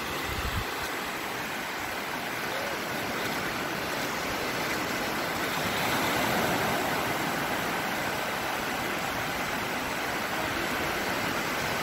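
Gentle surf: small waves washing steadily onto a sandy beach, swelling a little about halfway through.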